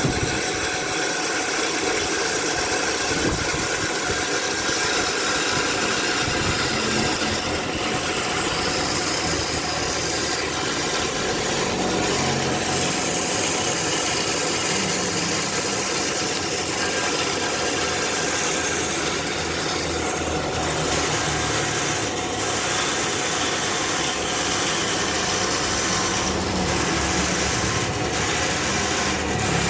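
Long two-man hand ripsaw (gergaji slendang) sawing lengthwise through a log, its teeth rubbing through the wood in steady, unbroken sawing.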